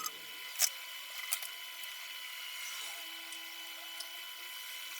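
Two light clicks of small hand tools at an electronics bench, about a second in and again half a second later, over a steady faint hiss with a thin high whine.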